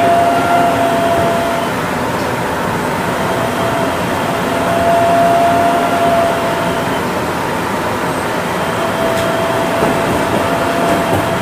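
Seaside Line 2000 series rubber-tyred automated guideway train running, heard from inside the car: a steady rush of running noise with a thin, even whine that fades in and out several times.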